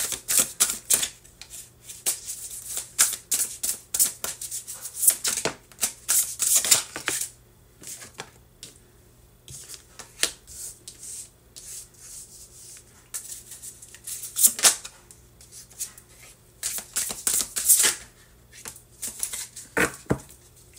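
Tarot cards being shuffled by hand: quick runs of card flicks and slaps, in two busy spells with a sparser lull in the middle.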